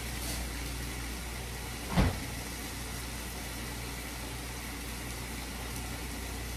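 Diced chicken frying in a pan on a gas burner: a steady low hum and hiss, broken by one short thump about two seconds in.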